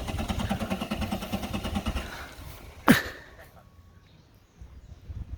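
Car engine turning over on its starter, a steady pulsing churn that stops after about two seconds without catching. A single sharp falling chirp follows about three seconds in.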